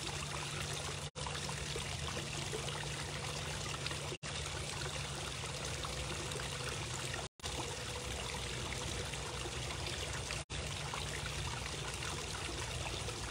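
Steady rushing noise with a low hum underneath, cutting out completely for a split second about every three seconds.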